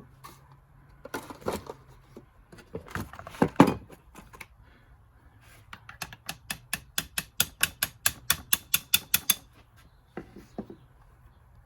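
Light metal taps driving a VW transmission shift rod back into the transmission cover. A few irregular knocks come first, then a quick, even run of about six taps a second for some three seconds.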